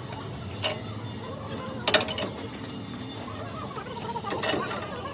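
Mechanical clicking: two sharp metallic clicks, the second the louder, over a steady low hum, with faint voices in the second half.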